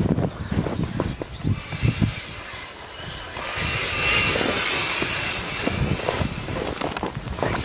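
Brushless electric drive of an RC snowcat running, a faint high whine over a hissy mechanical noise, with wind buffeting the microphone at the start and end.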